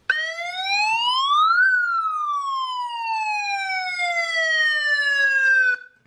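9561 sound-effect chip module playing its electronic police-siren tone through a small loudspeaker. It comes on suddenly, glides up in pitch for about a second and a half, then slides slowly down for about four seconds and cuts off.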